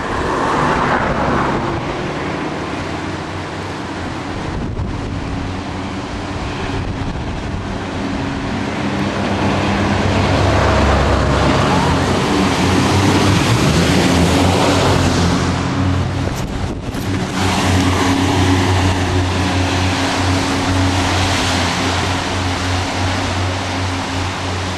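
A 500 hp jet boat running at speed, its engine drone under the rush of water spray and wind buffeting the microphone. The engine note shifts partway through.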